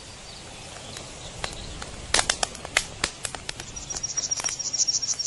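Outdoor nature ambience: scattered sharp clicks and taps, and a high, rapid trill lasting about two seconds near the end.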